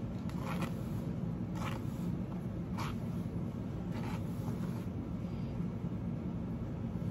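Hairbrush strokes through a synthetic wig: four short scraping swishes about a second apart, over a steady low hum.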